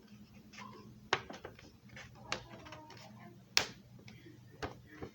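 A sheet of paper being folded and creased by hand: a few sharp crackles and taps with softer rustling between them, the loudest about three and a half seconds in, over a low steady hum.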